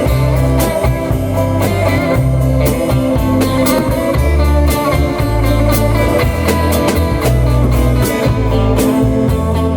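Rock band playing an instrumental passage led by guitar, with bass and drums keeping a steady beat.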